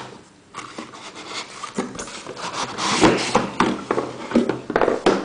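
Cardboard packaging handled by hand: the white MacBook Air retail box scraping and sliding against a brown shipping carton and its pulp inserts, with irregular rustling and short knocks. The louder scrapes come about three seconds in and near the end.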